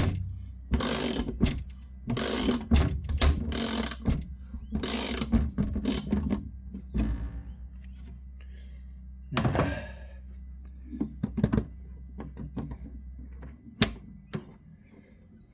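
Qmax sheet metal hole punch being drawn through aluminium as its bolt is tightened with a wrench: a run of short clicking wrench strokes for about six seconds, then scattered clicks and knocks, with one sharp click near the end as the cut comes through.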